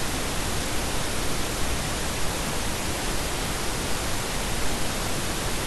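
Steady, even hiss of background noise in the recording, with nothing else standing out.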